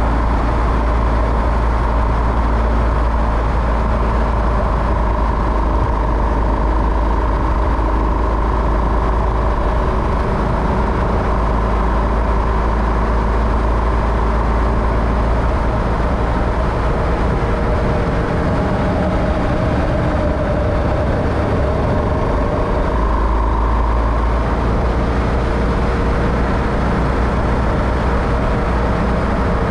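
A motor vehicle driving steadily, with a continuous low rumble of engine and road noise and faint engine tones that drift slightly up and down in pitch.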